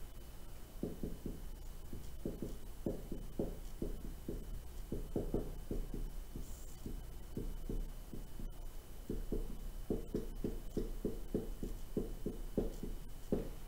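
Marker writing on a whiteboard: runs of quick, short strokes and taps, with a brief pause midway.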